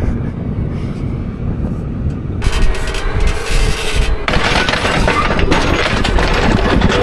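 Gravel crunching and crackling under the wheels of a John Deere 2510H anhydrous applicator as it is backed up, over a low engine rumble. The crunching starts about two and a half seconds in and gets denser a little later.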